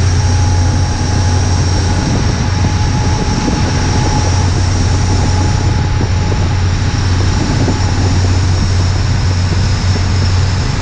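Rescue boat's engines running hard with a steady low drone, heard from inside its cabin, with a thin steady high whine over it and the rush of water and spray along the hull.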